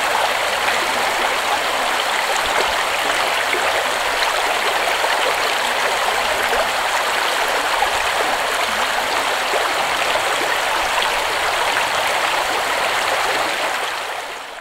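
Shallow creek rushing over a rocky bed: a steady rush of running water, fading out near the end.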